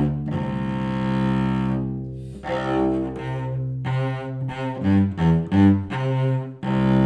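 Solo cello played with the bow in a slow waltz: a long held low note for about two seconds, then a string of shorter separated notes.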